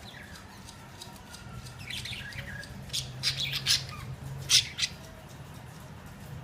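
Pet budgerigars chattering and squawking, with a run of sharp calls between about three and five seconds in, the loudest near its end. A faint steady low hum lies underneath.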